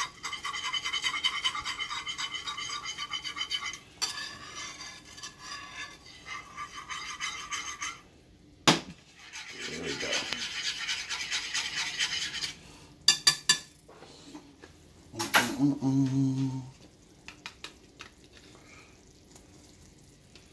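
Wire whisk beating a simmering cream sauce in a skillet: fast, steady scraping strokes for about four seconds, then lighter strokes that stop about eight seconds in. A few sharp taps and knocks follow.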